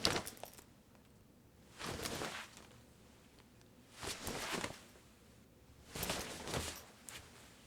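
Clothes on hangers in a closet being pushed along one after another, a rustling swish of fabric four times, about every two seconds.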